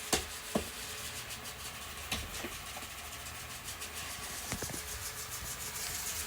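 Robot vacuum cleaner running: a steady motor whirr with a low hum and its brushes rubbing across the floor, broken by a few short knocks.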